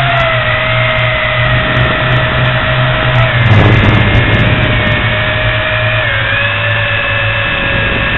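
Tarantula X6 quadcopter's electric motors and propellers whining steadily in flight, picked up by its onboard camera. The whine is several tones together that shift slightly in pitch about six seconds in as the throttle changes, with a brief louder rush of noise about three and a half seconds in.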